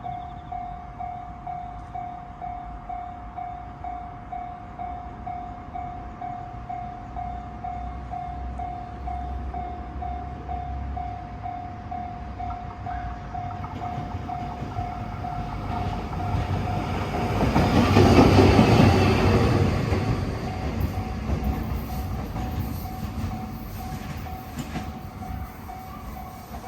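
Level crossing alarm bell ringing in a steady beat of about two strokes a second, as a freight train hauled by a DD200 diesel-electric locomotive approaches, passes loudest about eighteen seconds in, and rumbles away.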